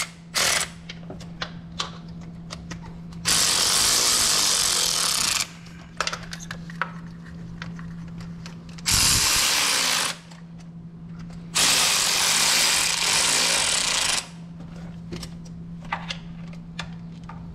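Cordless electric ratchet running valve cover bolts down, in four spells: a brief one just after the start, then about two seconds, one second and two and a half seconds long. Light clicks of the tool and socket come between the runs, over a steady low hum.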